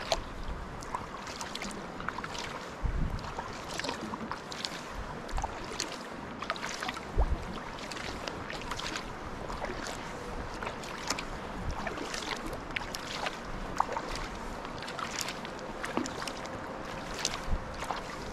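Sea kayak being paddled on calm water: the paddle blades dip in with small splashes, and water drips off them in many quick, crisp drips. A couple of low wind bumps hit the microphone.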